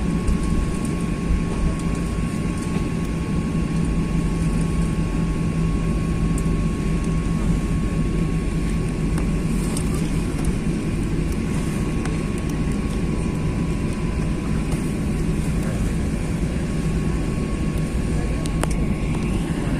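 Boeing 737-800 cabin noise while taxiing: the CFM56-7B jet engines running steadily, heard as a constant rumble with a low hum and a thin high whine over it.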